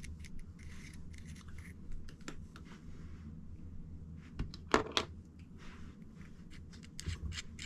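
Light clicks, taps and rubbing from metal mechanical pencils being handled and turned over in the hands, with one sharper, louder click a little past halfway.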